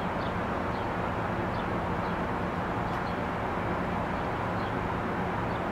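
Steady low hum of a MARC bilevel commuter train standing idle at the platform, its diesel running without change. Faint short high chirps come and go over it.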